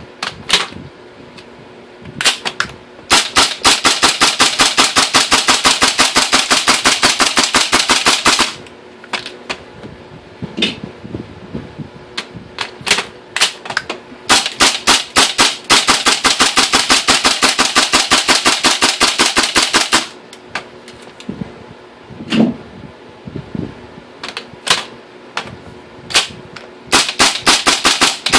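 LM4 gas blowback airsoft rifle running on propane and firing 0.20 g BBs: two long rapid strings of shots, each about five seconds, with single shots and short strings in between. It is being test-fired after a replacement nozzle was fitted to cure jamming.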